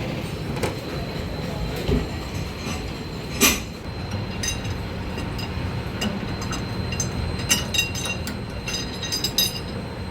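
Metal lathe running with a steady hum and a faint high whine. A sharp metallic click comes about three and a half seconds in, and a cluster of light ticks near the end.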